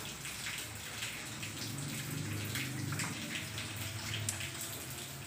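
Steady rain, with heavy drops splashing at irregular moments over a continuous wash of running water.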